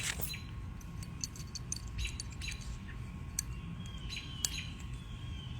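Light metallic clicks and taps of AR-15 bolt carrier group parts being handled and fitted during reassembly, the bolt cam pin going in. A few faint short chirps are mixed in.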